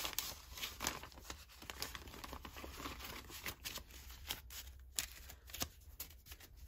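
Paper banknotes rustling and crinkling as a stack of dollar bills is handled and sorted by hand, in short irregular crisp rustles.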